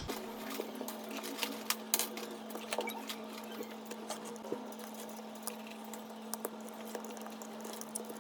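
Irregular light clicks and taps of small metal tools against the iPhone's glass and frame, over a steady electrical hum that switches on at the start.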